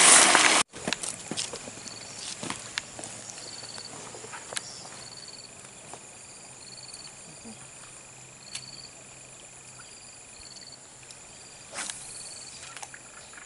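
Insects chirping in the waterside vegetation: a steady high buzz with short repeated chirps about once a second, over faint clicks and rustles. It opens with a loud rush of noise that cuts off abruptly under a second in, and near the end comes a brief whoosh as a fishing rod is cast.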